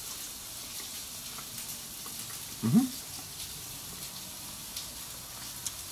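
A man tasting a piece of grilled pork gives one short hummed "mmm" about halfway through, its pitch falling. Underneath runs a steady faint hiss with light crackles.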